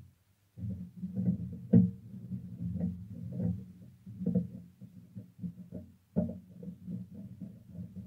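Irregular knocking, scraping and clattering as a typewriter's side body panel is handled and fitted onto the frame by hand, with a sharp click about two seconds in and another about six seconds in.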